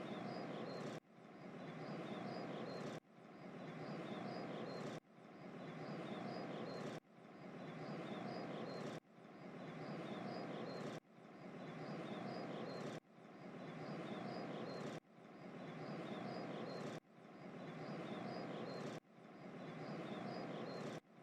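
A short stretch of outdoor noise ambience with faint high chirps, played as a loop: the same sound repeats about every two seconds, fading in each time and then cutting off abruptly.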